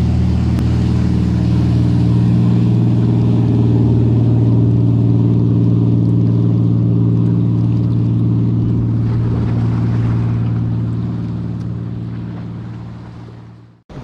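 A sportfishing boat's engines running past at speed, a steady low drone that fades away over the last few seconds.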